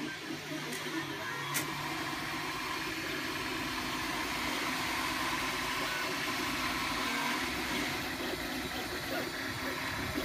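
MakerBot FDM 3D printer running mid-print: its stepper motors drive the extruder head and its cooling fan runs, giving a steady mechanical hum. A sharp click comes about one and a half seconds in.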